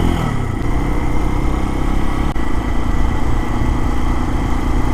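Lifan KPX250's single-cylinder four-stroke engine running under way: the engine note drops at the start, then holds steady.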